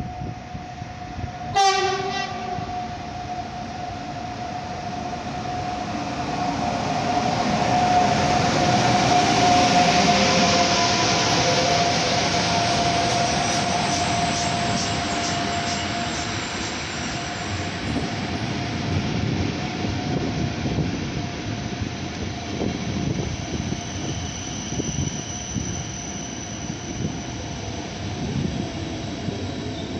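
Siemens Taurus (EU44 Husarz) electric locomotive sounds a short horn blast about two seconds in, then passes at speed without stopping, loudest around ten seconds in. A long train of passenger carriages follows, rumbling and clattering past.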